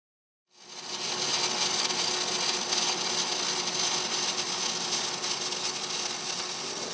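Robotic MIG welding arc, starting about half a second in and then sizzling and crackling steadily.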